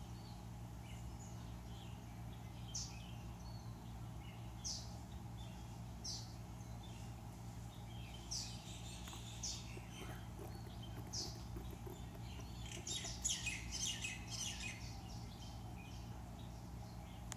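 Small birds chirping: single short, high, falling chirps every second or two, then a quick flurry of chirps about thirteen seconds in, over a steady low background hum.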